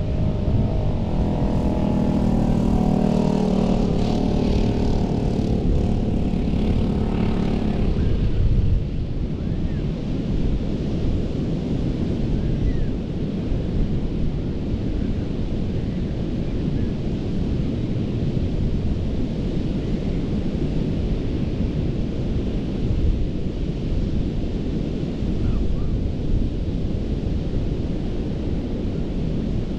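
Ocean surf on a beach: a steady low rush with wind buffeting the microphone. For the first eight seconds or so a motor's drone with a steady pitch sits over it, then cuts off suddenly.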